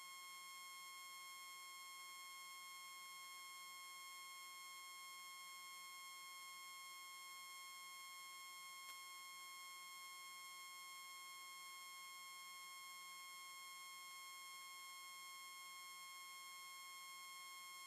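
Faint, steady high-pitched electronic whine made of several pure tones that never change, the kind of background noise that spoils a recording. There is a tiny click about halfway through.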